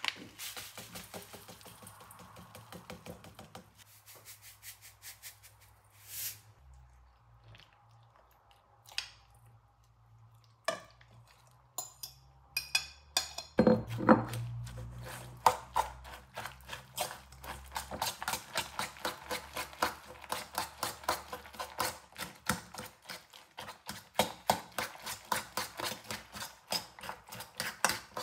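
Metal spoon stirring minced beef, raw egg and chopped onion in a stainless-steel bowl, with rapid repeated clinks and scrapes against the bowl. These start after a loud knock about halfway, when the meat is scraped off a plate into the bowl; before that only a few scattered handling clicks.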